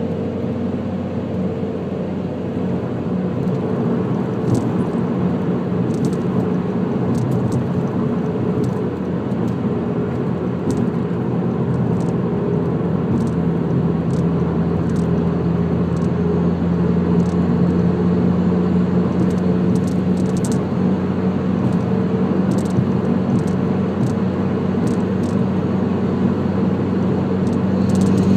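2010 Mazdaspeed3's turbocharged 2.3-litre four-cylinder, fitted with a catless downpipe and aftermarket exhaust, droning steadily at highway cruise inside the cabin over road noise. The drone rises a little in pitch and loudness about halfway through as the car gains speed.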